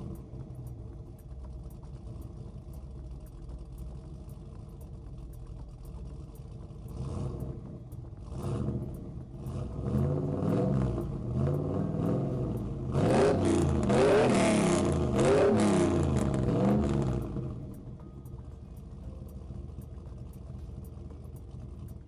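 A vehicle engine running steadily, then revved up and down again and again through the middle, before settling back to a steady run near the end.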